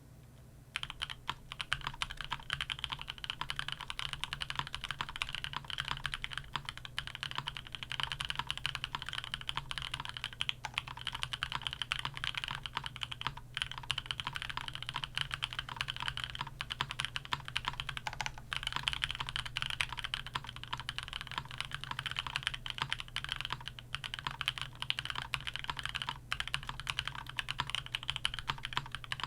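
Fast, continuous typing on a custom gasket-mounted mechanical keyboard with stock Vertex V1 switches, a carbon fibre plate, plate and case foam, and lubed TX stabilizers. It starts about a second in, with dense rapid keystrokes and short pauses here and there.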